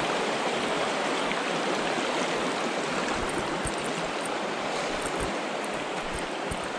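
Shallow, rocky mountain trout stream rushing over stones: a steady, even rush of water, with a few faint soft knocks.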